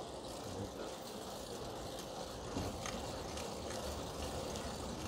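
Riding noise from a fixed-gear bicycle: the chain and tyres running steadily over the road, with a couple of faint clicks near the middle.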